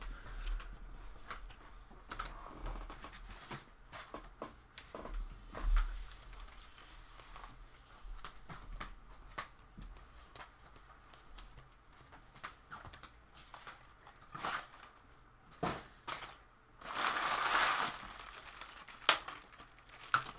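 Trading-card packaging crinkling and tearing as it is handled, with scattered light clicks and taps. Near the end there is one louder crinkling burst lasting about a second.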